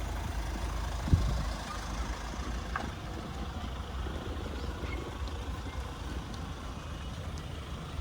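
Steady low outdoor rumble with a faint noisy haze, broken by one sharp thump about a second in.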